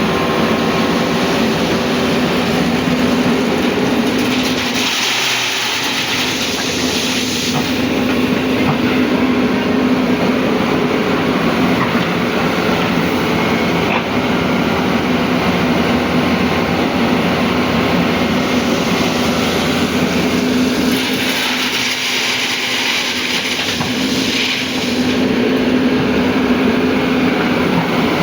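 Hyundai excavator's diesel engine running steadily and loudly, with a hiss that swells twice, about five seconds in and again about twenty seconds in, while the deep engine sound eases.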